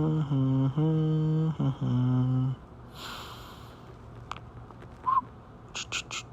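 A man humming a short tune in held, steady notes for about two and a half seconds, then the crinkle and crackle of a foil trading-card booster pack wrapper being torn open, with a hiss about three seconds in and a cluster of sharp crackles near the end.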